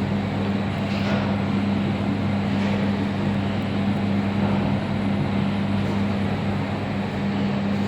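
Otis passenger lift car travelling between floors: a steady hum with an even rushing noise inside the car.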